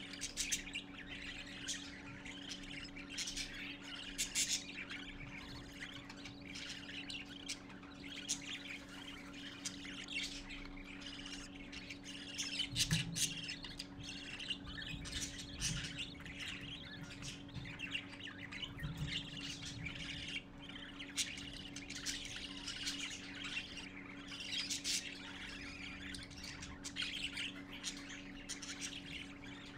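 Budgerigar chicks chirping and squawking in rapid, continuous calls, the begging calls of chicks being fed by an adult. A steady low hum runs underneath, with a few soft thumps about halfway through.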